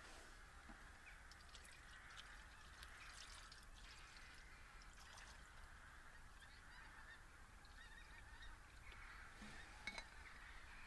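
Water being poured into a food-heating bag, a faint steady trickle.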